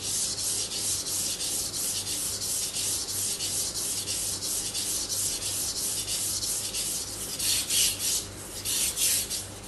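Knife blade stroked back and forth on a soaked whetstone at a steady angle of about 15 degrees: an even, rhythmic rasping hiss of about four strokes a second, the steady sound that shows the angle is held constant. Near the end the strokes turn louder and uneven.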